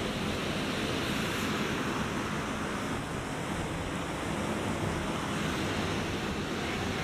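Ocean surf washing steadily onto the beach, a continuous rush of breaking waves that eases slightly about three seconds in.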